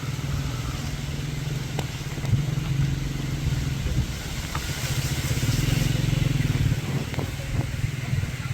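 An engine running steadily, a low even drone, with a higher rushing noise that swells about five seconds in.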